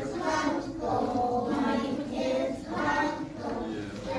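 Young children singing a song together, held notes changing about every half second.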